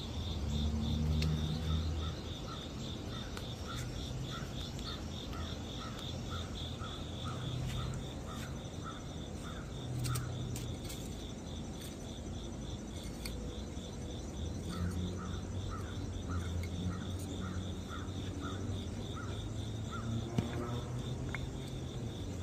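Outdoor insect chirping: a high, steady, fast-pulsing chirr throughout, joined by a lower chirp repeating about three times a second that stops partway and starts again, over a low rumble. A short rustle near the end.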